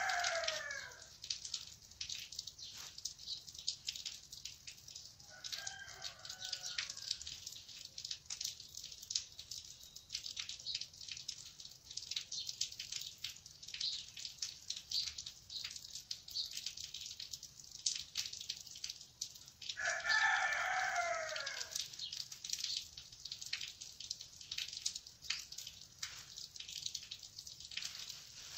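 A rooster crowing, faintly around six seconds in and loudly about twenty seconds in, with the tail of another crow at the very start, over light rustling and clicking.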